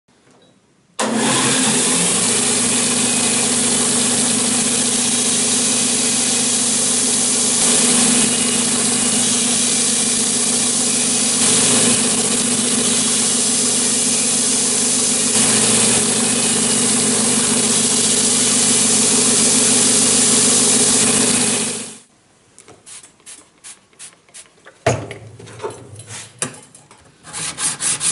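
Electric belt grinder running steadily with a low hum as the steel plane iron is ground against the belt, starting suddenly about a second in and stopping abruptly about 22 s in. A few scattered scrapes follow, then near the end the iron is rubbed back and forth in quick, even strokes on a flat sharpening plate.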